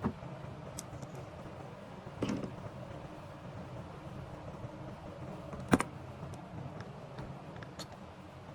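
Scattered small clicks and knocks of parts and tools being handled during a repair, with a short clatter about two seconds in and the loudest knock a little before the end, over a steady low hum.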